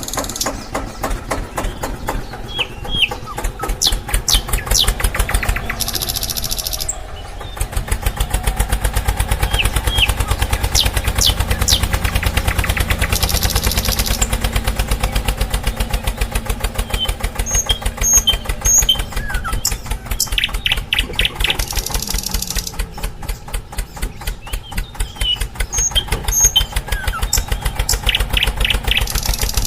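A small engine running with a fast, even chug, louder for a stretch in the middle, with birds chirping now and then.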